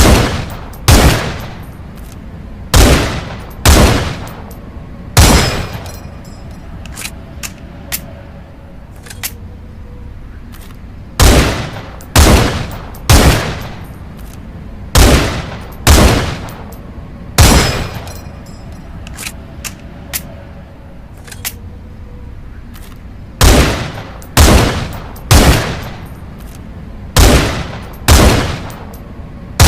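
Rifle shots fired singly about a second apart, in groups of four to six, each a sharp crack with a short echoing tail. Quieter small clicks fill the pauses between groups.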